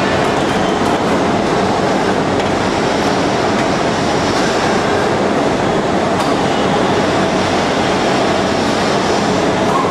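CNC shaping lathe turning a porcelain insulator blank, its cutting tools scraping the spinning body: a steady, dense mechanical noise with a few light clicks.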